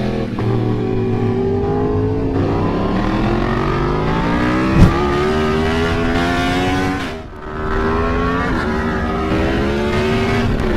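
Sport motorcycle engine accelerating hard through the gears. The pitch climbs and drops back at each upshift. There is one sharp pop about halfway through, and the engine eases off briefly about two-thirds in before pulling again.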